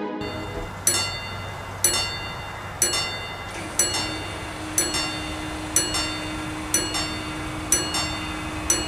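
Level-crossing warning bell striking about once a second, each strike ringing on briefly. About four seconds in, a low steady hum joins as the barrier arms lower.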